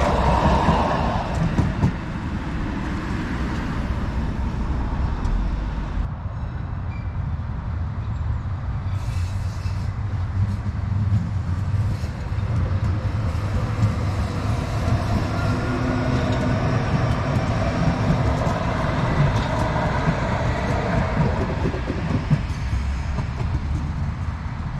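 Düsseldorf Stadtbahn light-rail tram running along the track: a steady rumble of wheels on rail with scattered clicks and knocks as the wheels cross rail joints.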